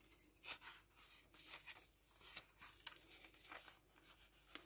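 Faint rustling of paper and card as the pages and folded pockets of a handmade junk journal are handled and turned, in a few soft brushes.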